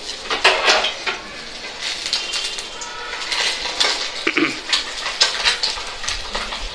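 Irregular clatter and clinks of cooking pots and kitchen utensils being handled, with sharp knocks scattered through.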